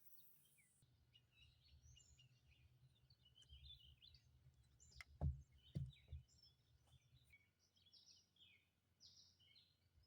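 Faint birds chirping over near silence, with two sharp knocks about half a second apart a little past the middle.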